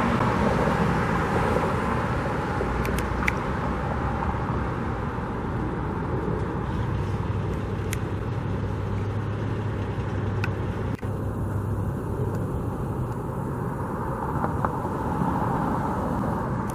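Steady hum of road traffic, with a constant droning tone and a few faint clicks; the hiss thins out about eleven seconds in.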